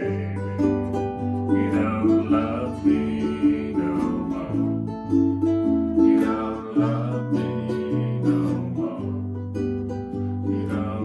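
Instrumental passage of an acoustic song: plucked strings with a steady rhythm over low bass notes that change about once a second.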